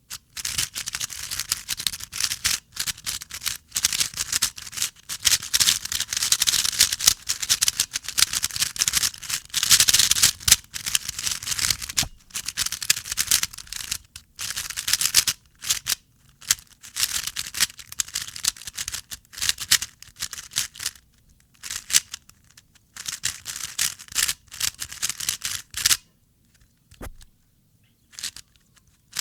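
A new speedcube (Rubik's-type puzzle) being turned fast by hand for its first turns: rapid plastic clicking and clacking of the layers, in bursts with short pauses, thinning to a few isolated clicks over the last few seconds.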